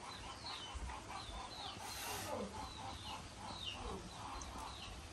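Chickens clucking and peeping: a steady run of short, high, falling chirps, several a second, with a couple of lower falling calls among them.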